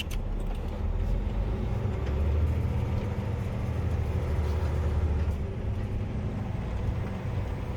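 Heavy diesel gravel truck engine running as the truck pulls ahead. It is a deep rumble that builds from about two seconds in and eases off after about five seconds.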